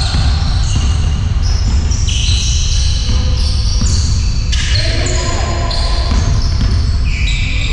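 Basketball game on a sports-hall court: sneakers squeak in short high-pitched squeals again and again as players cut and stop, and the ball bounces on the floor, over a steady low rumble.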